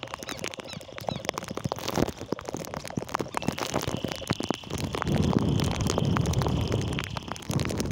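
A chorus of frogs trilling steadily, plainer from about halfway through, with rain drops tapping on the phone and a low rumble on the microphone in the second half.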